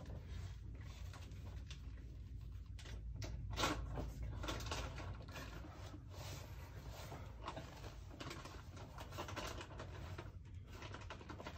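Irregular scuffs and taps of a climber's shoes and hands on the rock as he moves up the boulder, the loudest about a third of the way in, over a low steady rumble.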